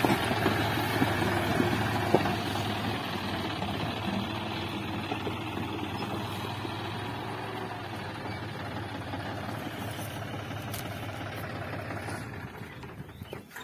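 John Deere 5036 D tractor's three-cylinder diesel engine running steadily while it pulls a trolley fully loaded with bricks, growing fainter toward the end.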